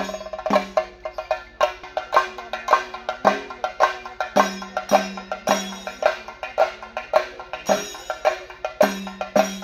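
A group of chenda drums beaten with sticks, playing a fast, steady rhythm of sharp strikes with a ringing drum tone under the heavier beats.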